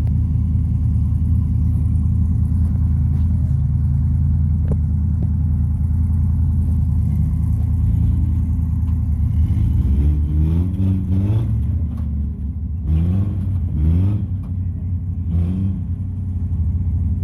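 Rock-crawling Toyota pickup's engine running steadily under load as it climbs boulders, then revved in several short throttle bursts from about ten seconds in, each rising in pitch.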